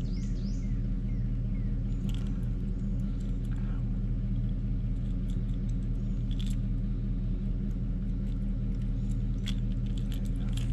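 A steady low mechanical drone, like a motor or engine running without a break, with a few faint clicks and ticks over it.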